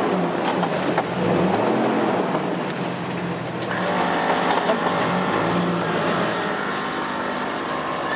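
Jeep engine running at low, slightly varying revs while crawling a steep off-road dirt trail.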